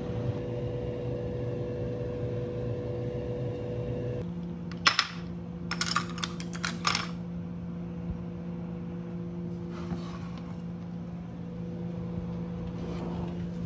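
A steady fan hum at the stove, which gives way to a different steady hum about four seconds in. Then a quick cluster of light, sharp clinks of ceramic dishes and utensils on a wooden tray, followed by a few single clicks.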